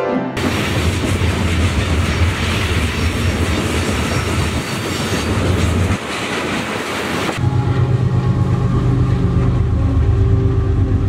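Freight train of covered hopper cars rolling past, a dense steady rush of wheel-on-rail noise. About seven seconds in, a BNSF diesel locomotive passes and its engine adds a deep steady drone.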